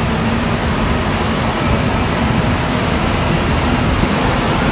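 Running noise inside a Concarril NS-88 rubber-tyred metro car in motion: a steady, loud rumble with no breaks.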